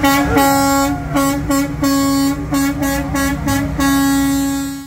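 Vehicle horn sounding one pitch in a quick string of about ten short honks, then one long blast that cuts off suddenly.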